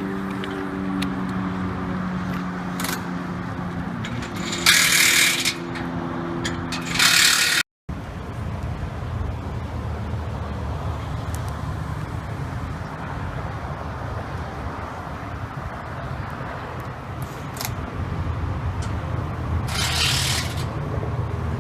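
Engine or machinery running with a steady hum, broken twice by short loud hissing bursts; after a cut it becomes a lower steady rumble, with another hissing burst near the end.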